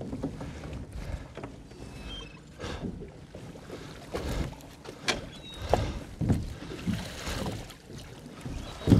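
A lobster pot being hauled up and brought aboard a small boat: a run of irregular knocks and clatter over a steady low wash of boat and water noise.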